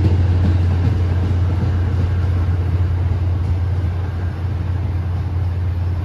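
MBTA commuter rail train pulling away from the platform: a steady low rumble of the train, with its diesel locomotive drone, that eases off slightly as the train recedes.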